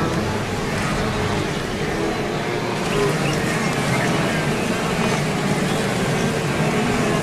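Wildebeest herd crossing a river and scrambling up the bank: a steady, dense din of many animals moving through water and onto the bank, a little brighter from about three seconds in.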